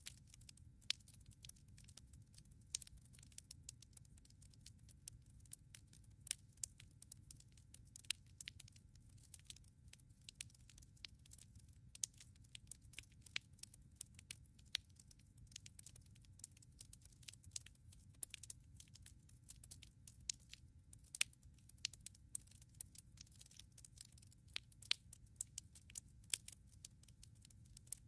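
Wood logs burning in a fireplace: sharp, irregular crackles and pops, several a second and of varying loudness, over a low steady rumble.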